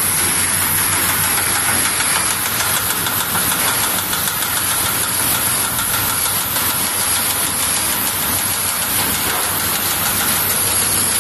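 Lollipop production line machinery running: a steady, loud mechanical hiss with a fine, rapid ticking underneath.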